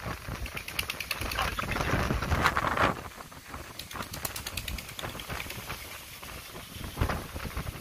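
Strong wind gusting against the microphone, rising and falling in buffets, with scattered crackling.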